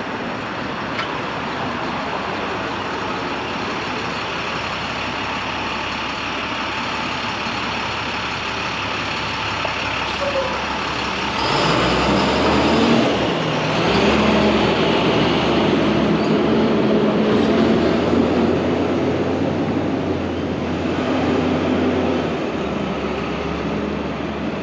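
Street traffic noise, a steady hiss of passing vehicles; about eleven seconds in a heavy vehicle's engine joins and runs louder with a low steady hum, fading again near the end.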